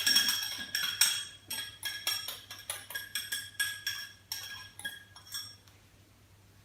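A metal kitchen utensil clinking repeatedly against a dish, each strike ringing briefly. The clinks come quickly and unevenly at first, thin out, and stop about a second before the end.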